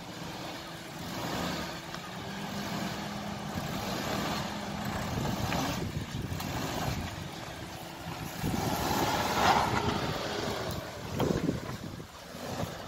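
A Suzuki Jimny's engine running as the 4x4 crawls over rough off-road ground, growing louder for a couple of seconds past the middle.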